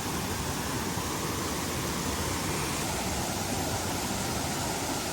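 Rain-swollen mountain stream rushing steadily down a small waterfall, an even, unbroken noise of falling water.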